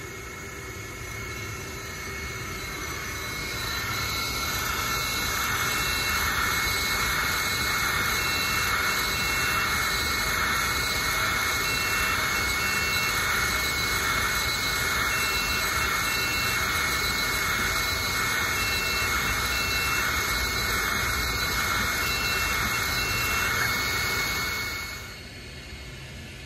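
Ortur Laser Master 3 diode laser engraver running a grayscale engraving job on a metal dog tag: a steady rushing machine noise with a couple of thin high tones, growing louder a few seconds in. Short high whines, likely from the stepper motors on each pass of the head, repeat about every second and a half. The noise drops away about a second before the end.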